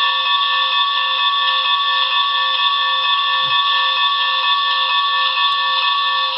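Bell sound from the onboard sound system of a Broadway Limited HO-scale Challenger 4-6-6-4 model steam locomotive, ringing over and over at an even pace through the model's small speaker.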